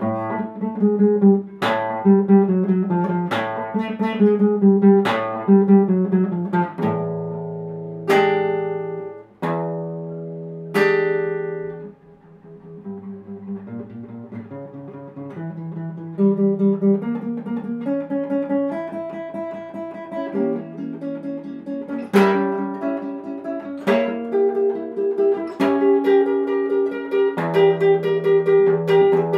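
Solo classical guitar played fingerstyle. Loud struck chords come about every second and a half at first, then a few long ringing notes. It dips quiet a little before halfway, and a quicker run of picked notes follows, with strong chords coming back.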